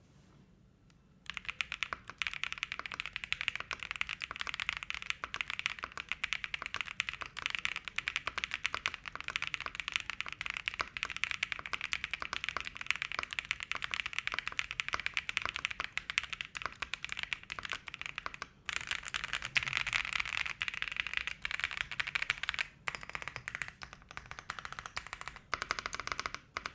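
Sugar65 custom mechanical keyboard with Diamond Avalon switches, DMK Ghost keycaps, and PE and case foam being typed on fast and continuously, a dense clacky clatter of keystrokes. It starts about a second in, with a few brief pauses in the latter part.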